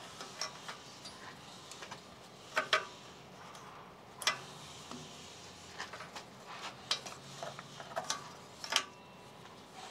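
Scattered sharp clicks and light plastic rattles as oxygen-sensor wires are worked loose from the small plastic retaining clips along the side of a car's transmission, with a quick double click a few seconds in the loudest.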